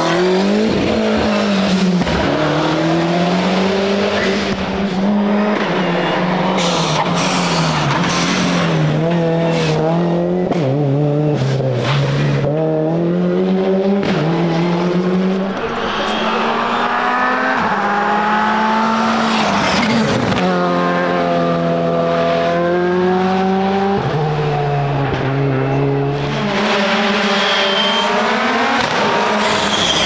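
Rally cars at full throttle on a tarmac stage, one after another, their engines revving up and dropping back with each gear change. Sharp pops come in a cluster about a third of the way through. First a Ford Sierra Cosworth's turbocharged four-cylinder, then a Škoda Fabia Rally2 from about halfway, and near the end an Audi Sport Quattro S1's five-cylinder.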